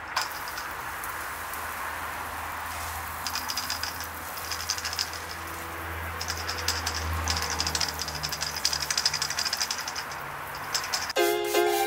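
Hand-pump pressure sprayer misting cleaner onto a car tire and alloy wheel: a steady spray hiss, with stretches of fast crackly rattling in the middle. Music comes in just before the end.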